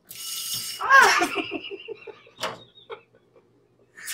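Water from a kitchen faucet hissing out for under a second, then a man's cry that breaks into laughter.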